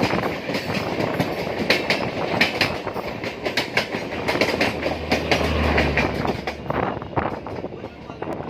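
Moving passenger train clattering along the track, its wheels giving a dense run of sharp clicks over rail joints. A low hum swells briefly past the middle, and the sound fades toward the end.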